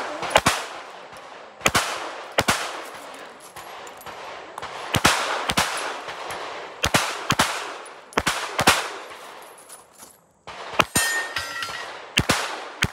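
Alien Retro competition pistol firing a USPSA stage. The shots come mostly as pairs about half a second apart, with a gap of a second or two between pairs, and each shot echoes briefly.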